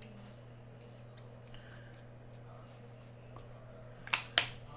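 Faint scratching of a Sharpie marker on cards over a low steady hum, then two sharp clicks a moment apart about four seconds in, as the marker is capped and set down.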